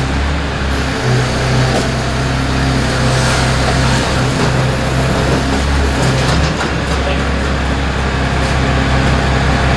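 Crane truck's engine running steadily, powering the hydraulic knuckle-boom crane as it sets down a heavy crate.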